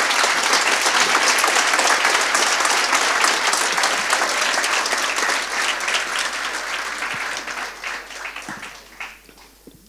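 Audience applauding: dense, steady clapping for about six seconds that then thins out and dies away near the end.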